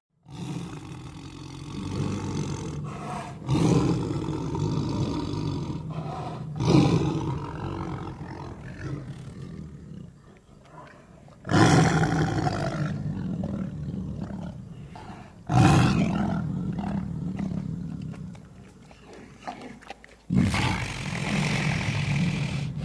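Tiger roaring: five loud roars about four seconds apart, each starting suddenly and fading away.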